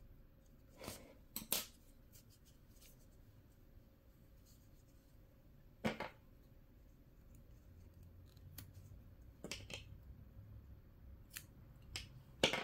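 Small craft scissors snipping crochet yarn: a handful of short, sharp snips and clicks spaced out over several seconds, the loudest about six seconds in.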